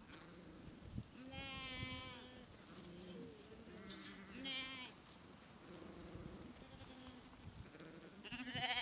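Lambs bleating in a flock: three clear wavering bleats, about a second in, at about four seconds and the loudest near the end, over fainter, lower bleats from other lambs.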